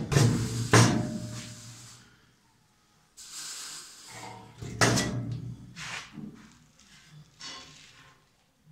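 Sharp sheet-metal knocks and clanks as a rusty steel seat-mounting base from a Ford Mustang floor is worked loose and lifted out after its spot welds have been drilled. There are two knocks in the first second and two more about five to six seconds in, with a brief scrape between them.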